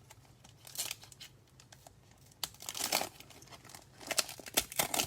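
Plastic wrapper of a trading-card pack crinkling and tearing as it is opened, in three bursts of crackle about a second in, in the middle and near the end.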